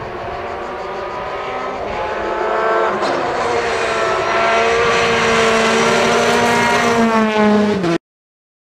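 Citroën DS3 R5 rally car's 1.6-litre turbocharged four-cylinder engine running hard as the car approaches at stage speed, growing louder, its note dipping and climbing several times and rising near the end. The sound cuts off suddenly just before the end.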